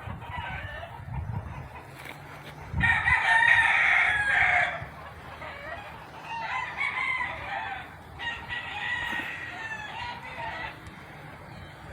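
A rooster crowing three times, the longest and loudest crow about three seconds in, over low background noise.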